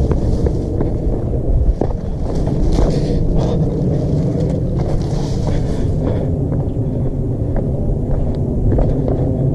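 Wind rumbling on the microphone, a steady low buffeting noise, with faint scattered ticks over it.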